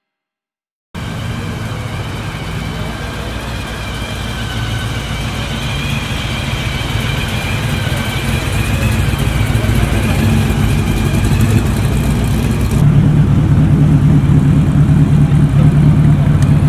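A car engine running steadily, growing louder; about 13 s in the sound changes abruptly to a stronger, deeper note.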